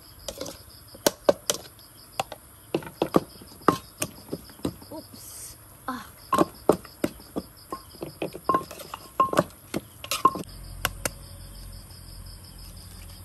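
A spoon and a knife clink and scrape against an earthenware bowl as minced fish is mixed into chili paste: a rapid, irregular run of sharp knocks that thins out near the end. Crickets chirp steadily in the background.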